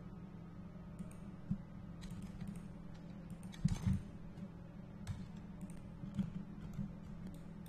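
Faint, scattered clicks of a computer mouse and keyboard at irregular intervals, the loudest pair a little past halfway, over a steady low hum.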